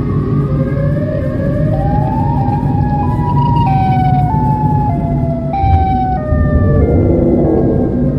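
A siren wailing over the steady low rumble of a moving car's road and engine noise. It glides slowly upward at first, then steps back and forth between two pitches in the middle.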